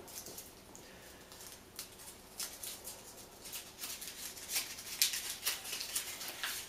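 Crumpled paper slip being picked open by hand: irregular crinkles and crackles, sparse at first and busier and louder from a couple of seconds in.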